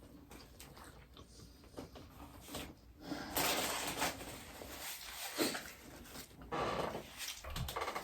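Quiet eating noises from someone eating a sandwich, in short irregular bursts: one a few seconds in and a couple more in the second half.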